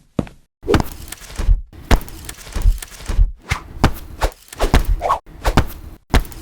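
Foley sound effects: a rapid series of thuds and knocks, about two or three a second, many with a deep low thump under them.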